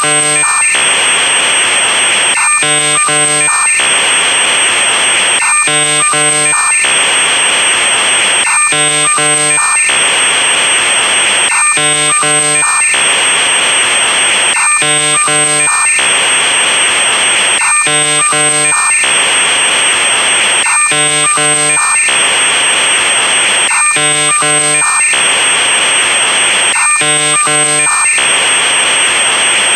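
Synthetic electronic sound effects: a thin steady high tone throughout, over a loop that alternates a hiss of noise with a short cluster of buzzing stacked tones, repeating about every three seconds.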